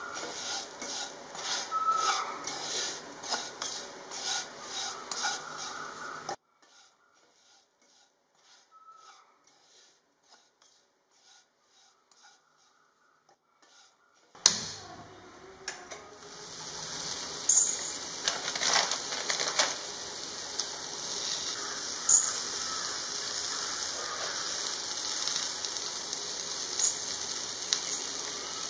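A spoon stirring brinjal (eggplant) pieces frying in a pan, scraping about twice a second over a sizzle, stops after about six seconds. After a quiet stretch, a steady sizzle starts again at about the halfway point as urad dal, chana dal and coriander seeds fry in the pan, with a few sharp clinks of the spoon.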